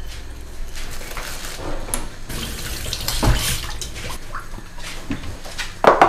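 Kitchen tap running into the sink as lettuce is rinsed, with a knock about three seconds in and another near the end.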